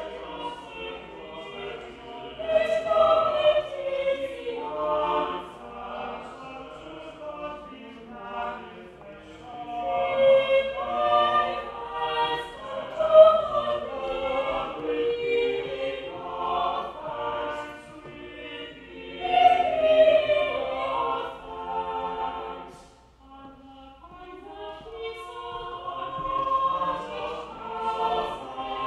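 Church choir singing in several parts, phrase after phrase, with a short breath-break about three-quarters of the way through.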